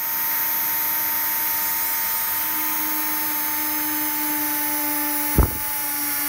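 Dremel rotary tool with a fine drill bit running at a steady high speed, drilling a small hole into a banjo's wooden fretboard. A brief knock about five seconds in.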